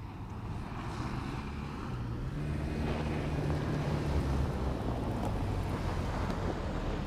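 2024 Toyota Land Cruiser's 2.4-litre turbocharged four-cylinder hybrid engine running under load as the SUV drives over a dirt trail, with the crunch and rush of its tyres on loose dirt. It grows louder as it comes closer, the engine note rising a little a few seconds in.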